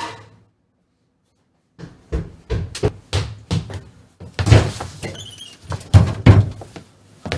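About two seconds of dead silence, then a string of irregular knocks and thuds, like things being handled and set down, loudest about four and a half and six seconds in.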